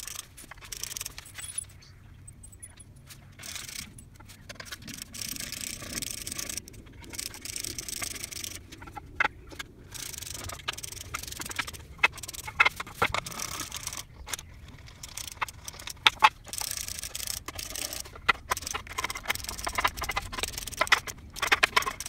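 A hand screwdriver driving screws into pine beams, heard as stretches of scraping and grinding broken by sharp clicks, with wooden blocks knocking on a tile floor.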